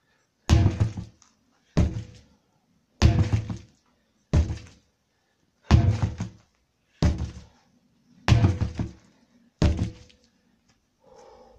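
Sledgehammer striking a stack of old tyres: eight heavy blows, evenly paced a little over a second apart.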